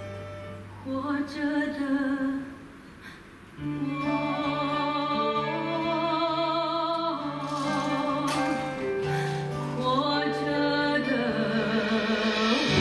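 A woman singing a slow ballad in Chinese with vibrato on the held notes, over an instrumental accompaniment with a steady bass line. The sound drops briefly about three seconds in before the voice and band come back in.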